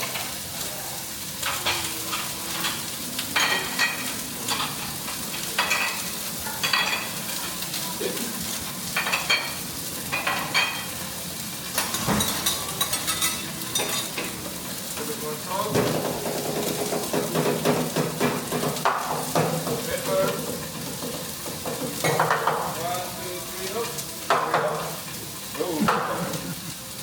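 Food sizzling on a hot teppanyaki griddle, with metal spatulas repeatedly scraping and clacking against the steel plate.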